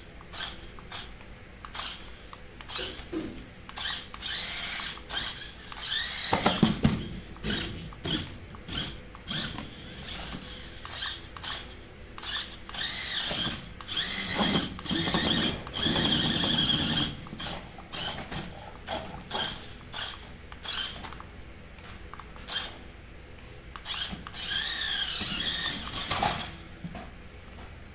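Battery-powered toy remote-control monster truck's small electric motor and gears whining in many short throttle blips, with a few longer runs where the whine rises and falls in pitch as it drives. Its tyres rumble against a cardboard box as it climbs onto it.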